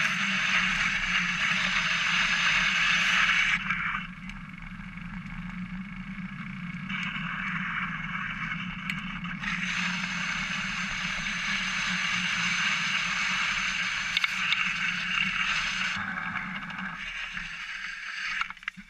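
Single-speed bicycle riding along a trail, picked up by a camera mounted on the top tube: a steady hiss of tyre and drivetrain noise with a low hum beneath, louder for the first few seconds and again through the middle, dropping away near the end.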